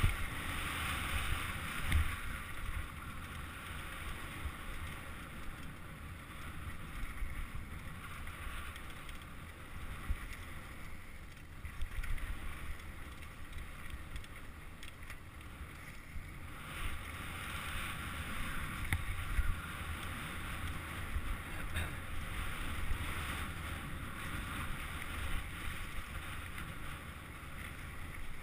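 Santa Cruz V10 downhill mountain bike descending a dirt and gravel trail: steady tyre noise and rattle with wind buffeting the microphone, and occasional sharp knocks from bumps.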